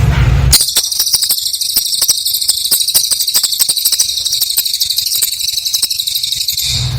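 Cililin bird singing: a dense, very high-pitched rapid trill that cuts in about half a second in and stops sharply near the end.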